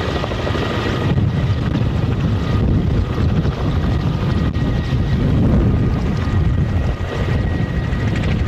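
Kamov Ka-32 coaxial-rotor helicopter hovering low as it descends to land, its rotors beating steadily with a faint steady whine above, swelling a little in loudness about two thirds of the way through.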